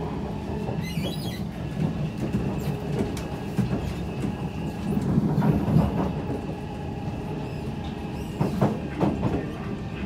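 Kawasaki–Kinki Sharyo C151 metro train running out of the station on an elevated track, with the steady rumble of wheels on rail. Its permanent-magnet synchronous traction motors give a thin steady whine over the rumble, and there are scattered clicks from the wheels over the rail.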